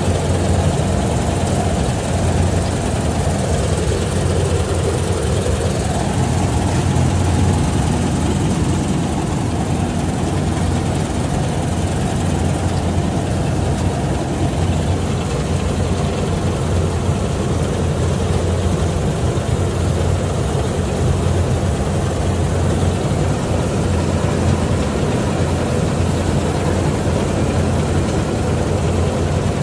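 Kartar combine harvester running while cutting and threshing paddy: a steady, heavy drone of the engine and threshing machinery, with a strong low hum and no change in level.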